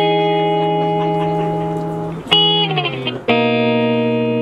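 Guitar chords struck and left to ring, with no singing. A chord rings from the start, and two more are struck about two and three seconds in.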